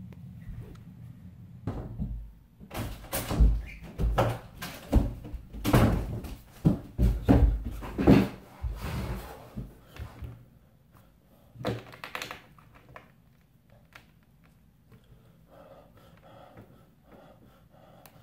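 Irregular thumps and knocks in a small room, some of them door-like bangs, from the camera being handled and moved about. They come thick and loud in the first half, die away by about ten seconds, and one more knock follows about twelve seconds in.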